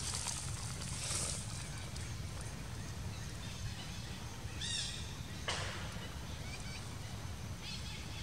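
Outdoor ambience: a steady low rumble, a rustle in the first second, and a few short, high chirps, the clearest about halfway through, with a sharp click just after it.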